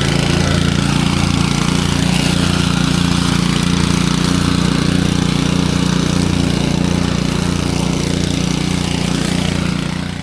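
Honda UM536 three-wheeled self-propelled mower's engine running steadily while mowing, with an even pulsing hum; the sound fades out at the very end.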